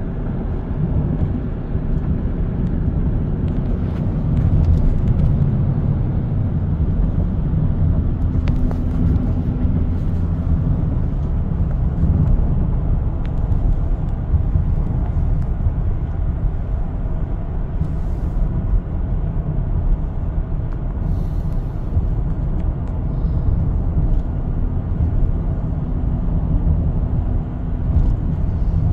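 Steady low rumble of a car driving at road speed, heard from inside the cabin: tyre and engine noise on the highway.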